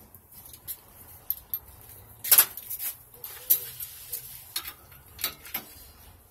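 Hand tools clinking and tapping against a mini bike's metal frame as it is worked on: a scattering of sharp metallic clicks, the loudest about two seconds in.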